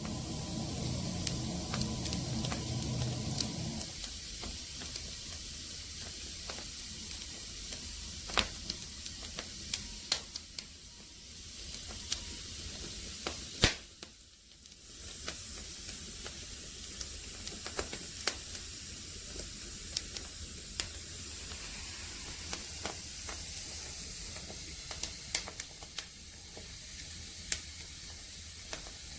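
Firewood burning in an agungi firebox, hissing steadily with sharp crackles and pops scattered throughout. A low rumble in the first four seconds or so stops abruptly.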